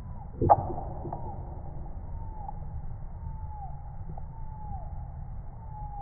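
Slowed-down sound of a black woodpecker chiselling a birch trunk: one heavy, deep knock of its bill about half a second in, over a steady low rumble. Several faint falling tones follow, spaced about a second apart.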